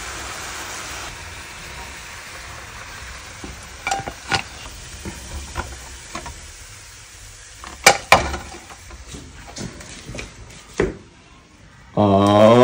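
Sauce sizzling in a metal pan around a cooked lobster and Dungeness crab, with a wooden spoon stirring and knocking against the pan a few times, the loudest a pair of knocks about two-thirds of the way in. The sizzle is strongest at the start and then dies down, and a voice comes in near the end.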